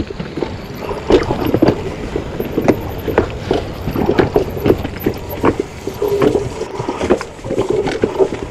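Mountain bike going down a steep rocky trail: frequent irregular knocks and clatters as the wheels hit rocks, over a steady low rush.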